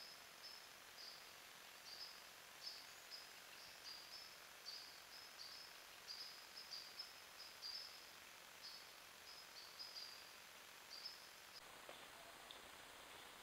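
Faint high chirping from a small animal, short chirps repeated about twice a second, over the steady hiss of a trail camera's microphone; the chirping cuts off near the end.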